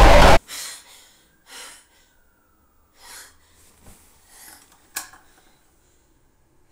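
A loud burst of music and noise cuts off suddenly, and four soft, heavy breaths follow in a quiet room. About five seconds in comes a single sharp click: a lamp being switched on.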